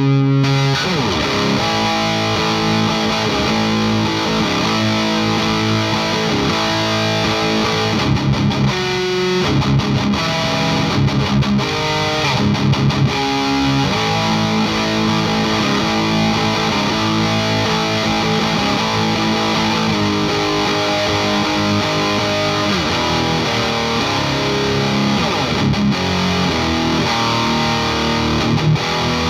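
Heavy distorted electric guitar riffing and sustained chords, from an Ibanez V-Blade through an Abominable Electronics Hellmouth distortion pedal and Rivera amp into a miked isolation cabinet, played as a pickup sound test. There is a run of short, choppy stabs around the middle.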